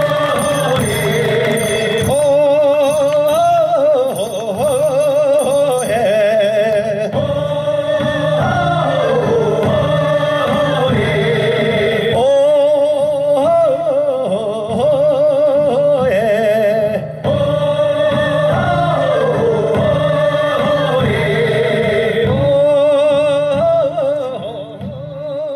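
Korean traditional funeral music: a melody with heavy vibrato repeats in falling phrases over a steady low accompaniment and percussion. It fades out near the end.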